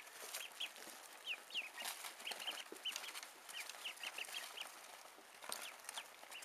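Day-old ducklings peeping: a steady run of short, high cheeps, several a second, some falling in pitch, with a few sharp clicks among them.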